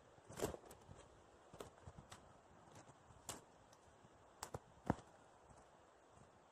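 Footsteps on a leaf-littered dirt forest trail: faint, irregular clicks and scuffs, the loudest about half a second in and just before five seconds.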